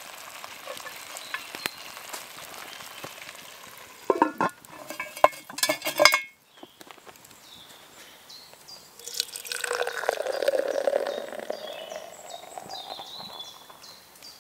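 Food sizzling quietly in a cast-iron Dutch oven, then a burst of sharp clicks and clatter about four seconds in. From about nine seconds in, a drink is poured from a can into a horn tankard: a few seconds of splashing and gurgling whose pitch shifts as it fills.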